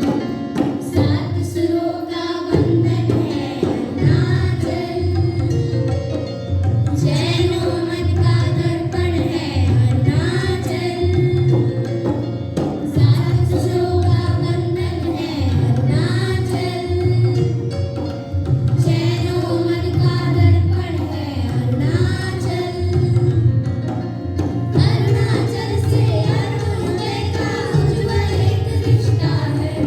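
Music for a dance: a song with singing over a steady, repeating drum beat.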